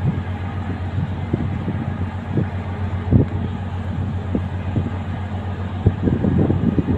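A steady low engine-like hum with irregular low rumbles, heard outdoors by the water.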